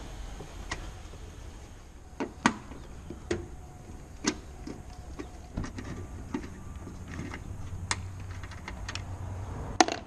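Irregular metallic clicks and knocks of a ratchet wrench with a 7 mm socket being worked and handled on bolts, with a sharper knock near the end.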